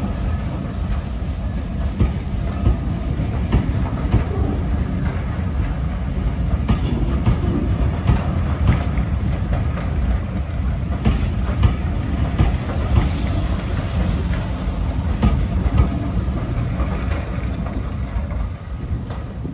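Rake of LNER teak coaches rolling past close by, a steady low rumble with the clickety-clack of the wheels over rail joints. The sound drops away near the end as the last coach moves off.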